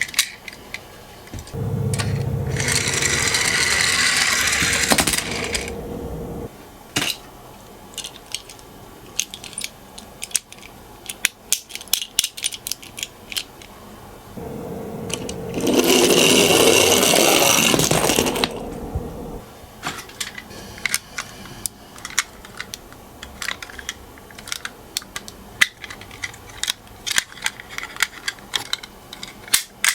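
Toy minicars clicking and clattering on a plastic course. Twice a toy mechanism whirs for several seconds.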